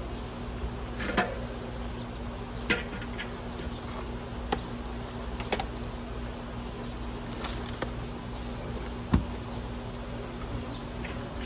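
Honeybees buzzing steadily at the hive, with a handful of sharp clicks and knocks scattered through it; the loudest knock comes about nine seconds in.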